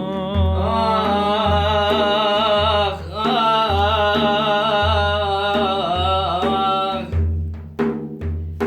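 A male madih singer drawing out a long melismatic line of Sufi devotional praise over a hand drum beating about once a second. The voice stops about seven seconds in, and the drum strokes carry on alone.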